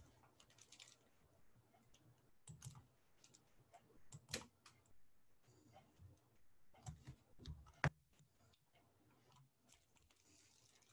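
Faint, scattered clicks and soft knocks against near quiet; the sharpest click comes near eight seconds in.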